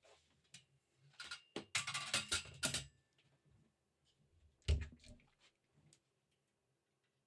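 Ulanzi Claw quick release and camera being handled: a run of clicks and rattles as the camera is lifted and moved, then a single solid low thump about halfway through as it is set into the mount.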